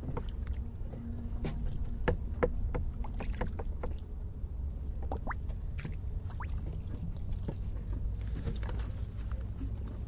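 Water bubbling and lapping at a lake's edge: frequent small pops and gurgles over a steady low rumble.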